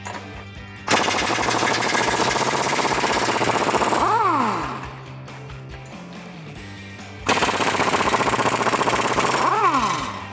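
Pneumatic impact wrench hammering as it breaks loose the lower control arm bolts, in two bursts of about three seconds each. Each burst ends with a falling whine as the air motor spins down after the trigger is released.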